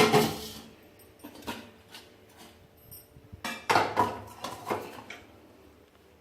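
Small metal cooking pots knocking and clinking against one another as they are handled and nested. A loud clank opens it, lighter clinks follow, and a cluster of clatter comes about four seconds in; the first strike rings briefly.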